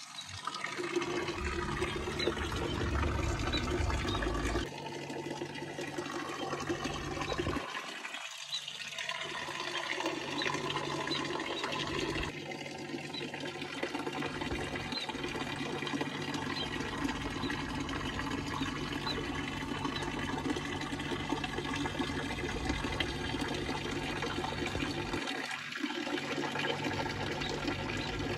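Small fountain jet splashing steadily into a round water basin, a continuous even rush of falling water.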